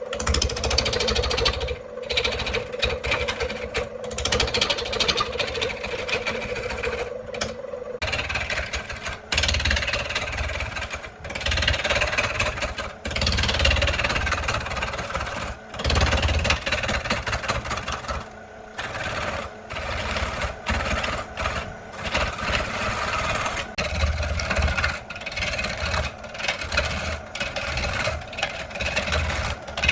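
Electric woodworking power tools running, a steady motor hum for the first eight seconds or so, then rougher, uneven machining noise that keeps briefly stopping and starting.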